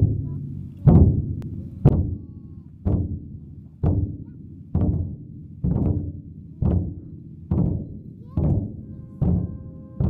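Frame drumming: a slow, steady beat of about one low, ringing stroke a second. Faint held musical tones come in near the end.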